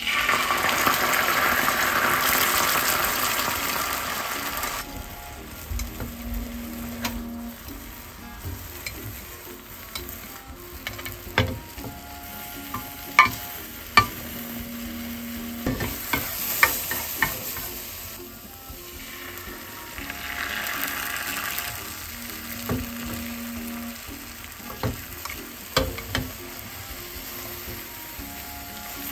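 Beaten egg sizzling loudly as it hits a hot, oiled square tamagoyaki pan, easing to quieter frying after a few seconds. Scattered sharp clicks and scrapes follow as a slotted turner works the omelette against the pan, with another swell of sizzling about two-thirds of the way through.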